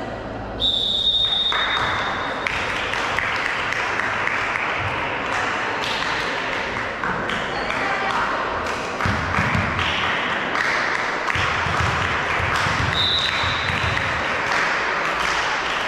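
Referee's whistle blown in a volleyball match, a short high steady tone about half a second in and again near the end. Between the blasts come the voices of players and spectators, with short knocks of the ball being struck and bouncing.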